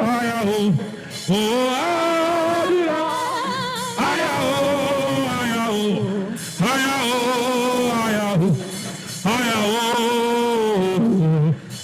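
A solo voice singing slow worship phrases with long held, wavering notes. It sings about five phrases, each separated by a short breath.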